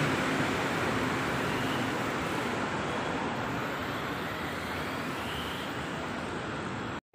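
Steady urban traffic noise, an even wash of road sound that gets slightly quieter. A faint rising whine comes through about two and a half seconds in, and the sound drops out for a moment right at the end.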